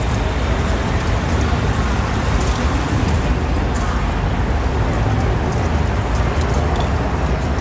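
Steady roar of road traffic around an open-air elevated train station, with a few faint clicks of coins dropping into a ticket vending machine.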